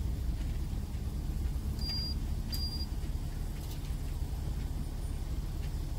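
Car engine idling, heard from inside the stopped car. Two short high electronic beeps sound about two seconds in, close together.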